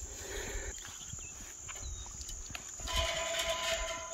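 A farm animal gives one long, steady call starting near the end, over the steady high chirring of insects.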